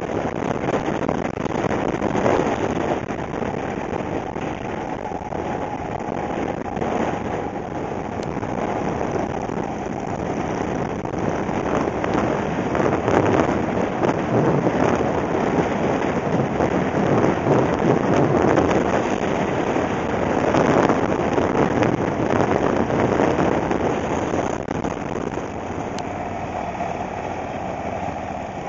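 Motorcycle at road speed: a loud, steady rush of wind over the microphone with the engine running underneath, easing a little near the end as the pace slows.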